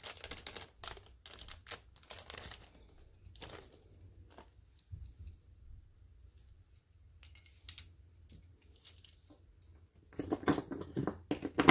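Plastic wrap and a small plastic bag crinkling and tearing as small plastic model parts are unwrapped by hand, with light clicks of the parts. The sound is in scattered short bursts at first, then a longer, louder stretch of crinkling near the end.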